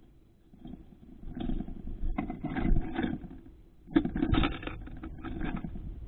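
Tufted titmouse scrabbling and pecking at seeds in a metal feeder dish right at the microphone: irregular clusters of scrapes and clicks with a low rumble, in two spells with a pause of about a second between them.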